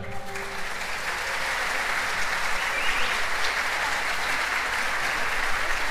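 Audience applause following the end of a choral piece: the choir's last note dies away as the clapping swells within the first second, then holds steady.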